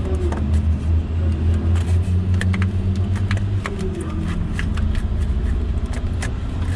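Starter motor being worked free and lifted out from under the car: scattered metal clinks and knocks over a steady low hum, which eases a little after the middle.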